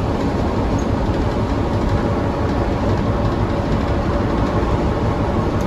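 Steady engine drone and road rumble heard from inside a city transit bus moving at highway speed.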